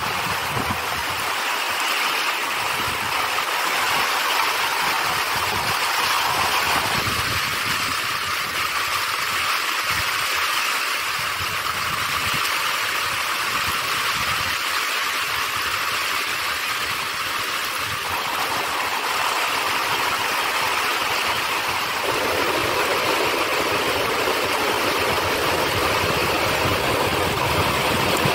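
Heavy rain falling steadily, with water running off an edge close by: a loud, even hiss with no break.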